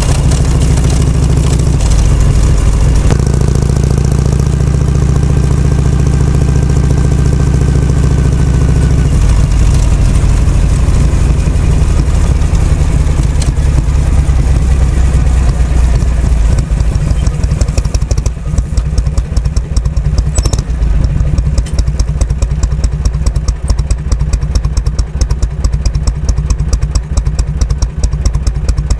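Harley-Davidson Shovelhead FLH's V-twin running steadily under way, then backing off after about nine seconds and settling into a slow idle from about eighteen seconds in, each firing beat heard separately.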